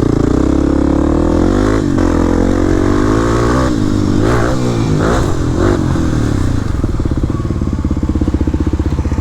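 Single-cylinder four-stroke dual-sport dirt bike engine, loud, revving up under throttle with its pitch rising and dipping as the throttle is opened and closed several times. In the last couple of seconds it settles into a slow, even putter.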